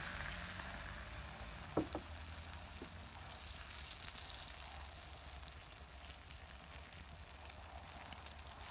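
Eggs frying on a flat tawa griddle, a steady soft sizzle. About two seconds in there are two sharp taps, then a lighter one, as the metal spoon strikes the pan while spreading the yolk.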